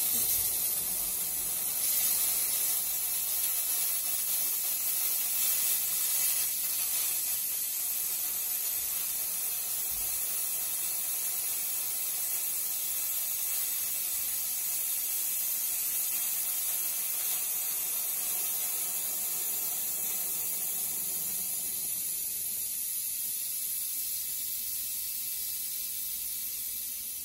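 H2O Steam Union handheld steam cleaner jetting steam from its extension nozzle: a steady, high hiss that thins slightly over the last few seconds.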